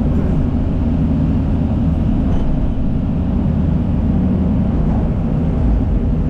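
Diesel engines of heavy earthmoving machinery, a crawler dozer and an excavator, running steadily under work with a loud, unbroken low engine sound.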